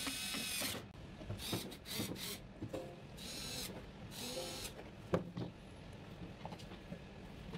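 A TOTAL 4 V cordless screwdriver whirs in about six short runs, each under a second, as it turns small screws in a plastic pump control box lid. Near the middle, a couple of sharp clicks and light knocks of plastic parts being handled follow.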